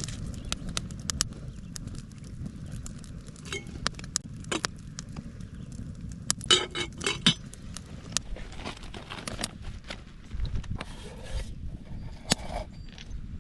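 Wood bonfire crackling, with irregular sharp pops and a quick cluster of louder snaps a little past the middle, over a low steady rumble.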